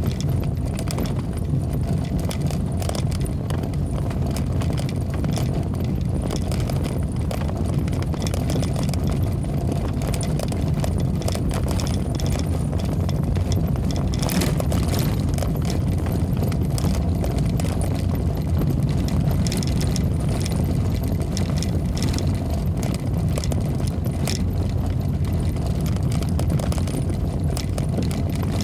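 Car driving over a rough stone-paved road, heard from inside: a steady low rumble of engine and tyres with frequent small rattles and knocks throughout.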